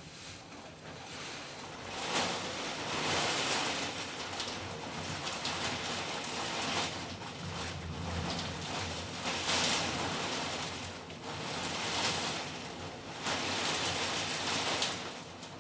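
Squall-line wind and heavy rain of a passing thunderstorm, rushing in gusts that swell about two seconds in, rise and fall several times, and ease near the end.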